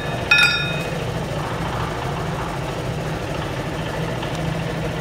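A single ringing clang of struck steel about a third of a second in: a blow on the tractor-trolley's steel rear axle to knock its bearing loose. It sits over a steady low hum of an engine idling.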